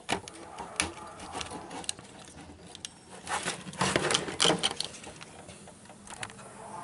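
Irregular clicks and rattles of hands handling a CRT TV's flyback transformer and its circuit board as the flyback is fitted into place. The handling is busiest a few seconds in.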